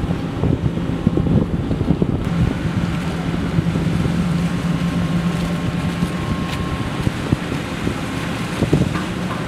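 Wind buffeting the microphone over the steady low hum of boat engines motoring past.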